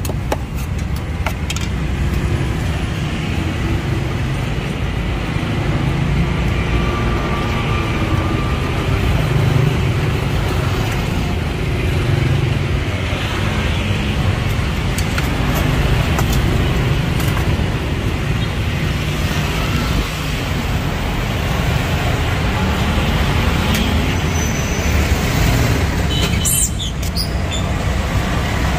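Steady street traffic noise from passing motor vehicles, with a short high crackle near the end as plastic cling film is pulled around a coconut.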